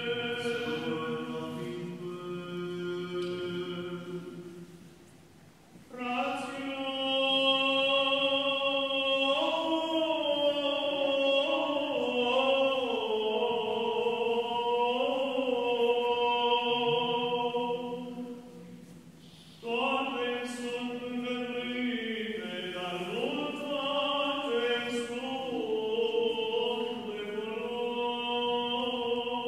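A solo male voice chanting the Epistle reading (Apostol) in Byzantine tone 1, unaccompanied, in long ornamented phrases with two short pauses for breath, about five seconds in and about two-thirds of the way through.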